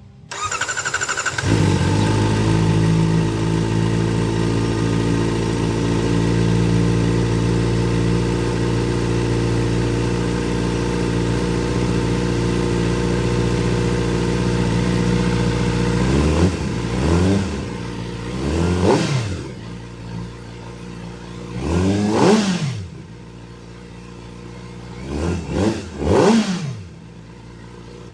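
Kawasaki ZX-4RR inline-four through a Trick Star Ikazuchi slip-on exhaust with the dB killer baffle fitted: the engine is started, catching about a second and a half in, idles steadily, then is revved in about six short blips before settling back to idle.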